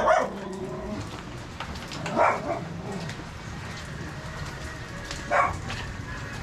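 A dog barking three times, single barks about three seconds apart, over the steady hiss of rain.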